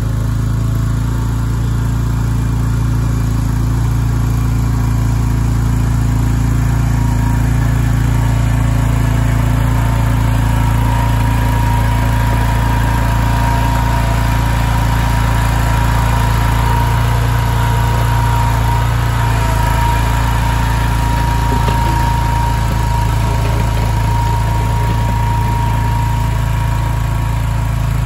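Boxer 427 tracked mini skid steer running steadily while it drives over gravel, its engine drone carrying a steady high whine.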